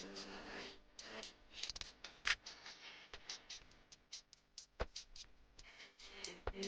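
Irregular light clicks and taps, with a stronger click about two seconds in and another near five seconds, over a faint low steady tone at the start and near the end.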